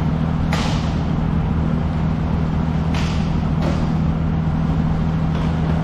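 A steady low hum, with four sharp clacks of hockey sticks and puck at the far end of the rink, scattered through.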